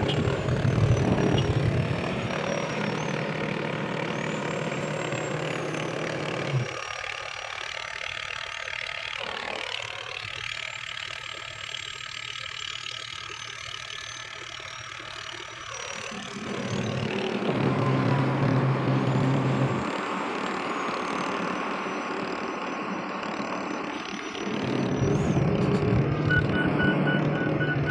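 Diesel engine of heavy yard machinery running, growing quieter for a while and then louder again, with a short rapid beeping near the end.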